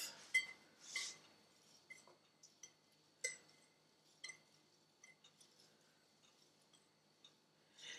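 Light, scattered clinks of a metal utensil against a glass mixing bowl as dry powdered soup mix is scraped out through a funnel into a glass jar. The clicks come at irregular moments, a few with a brief glassy ring.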